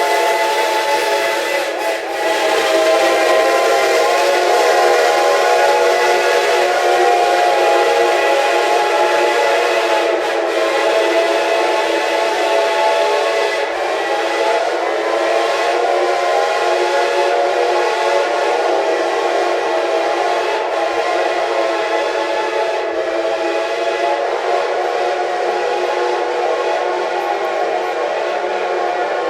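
Steam whistles of several geared logging locomotives (Shays, Heisler and Climax) blowing together in an all-whistle salute. It is one loud, unbroken chord of many overlapping whistle tones, with pitches bending slightly now and then.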